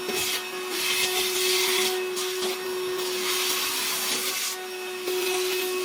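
VacLife VL726 cordless handheld vacuum running, with a steady motor whine under an airflow hiss that swells and fades several times.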